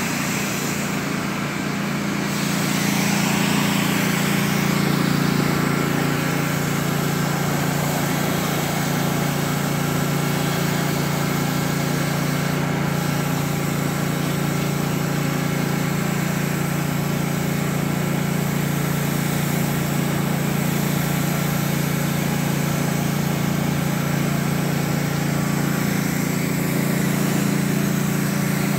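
Pressure washer running steadily: its small engine's steady drone under the hiss of the high-pressure water jet hitting the concrete pavement.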